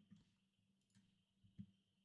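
Near silence with a few faint computer mouse clicks, the loudest about one and a half seconds in.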